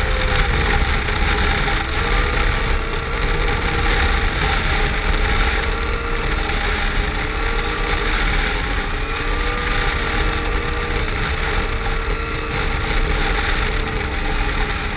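Yamaha RX-1 snowmobile's four-stroke four-cylinder engine running on the move, its pitch dipping and rising again several times as the throttle changes, over a steady rushing noise.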